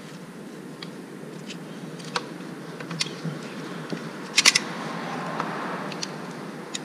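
Utility-knife blade working at the stuck gasket of an outboard engine's thermostat cover to pry it loose: scattered light clicks, a quick run of three sharp clicks about four and a half seconds in, then a short stretch of scraping.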